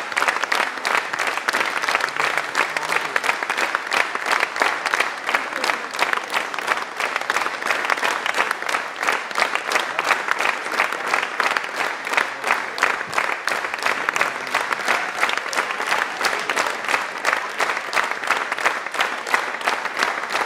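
Concert audience applauding: dense, steady clapping from a large crowd.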